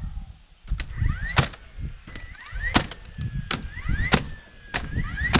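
Cordless nail gun firing nails into the wooden door and frame: about six sharp shots, each preceded by a short rising whine as its motor spins up.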